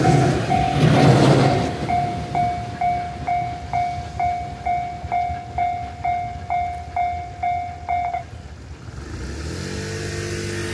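Railway level crossing warning bell ringing at about two strikes a second while a passing train's rumble dies away in the first two seconds. The bell stops about eight seconds in, and a road vehicle's engine comes up near the end.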